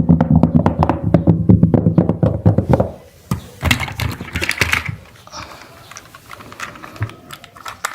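Rapid clicking and clattering of hard plastic toys being handled, dense and loud for the first three seconds, then scattered clicks that thin out.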